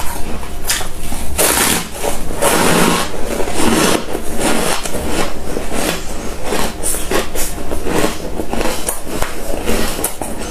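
Close-miked crunching of packed freezer frost being bitten and chewed: a dense run of irregular crisp crunches, loudest between about one and a half and four seconds in, then steadier, lighter crunching.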